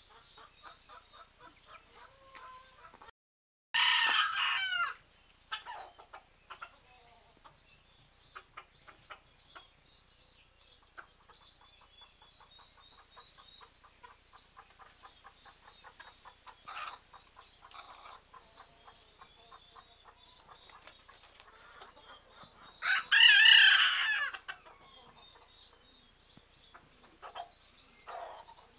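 A hen crowing like a rooster, twice: two loud crows, one a few seconds in and one near the end, each a little over a second long. Between them, soft clucking and small chirps of birds.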